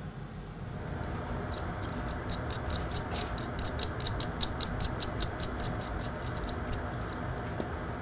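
A quick run of light, even clicks, about four a second, over a steady hiss, from the PCB board holder as the board is being fitted and clamped in it.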